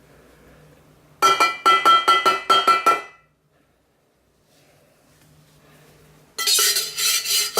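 A utensil clinking repeatedly against a ringing container, about eight quick strikes in under two seconds, then after a pause more rapid clinking and scraping near the end, as lye solution is stirred into the soap oils.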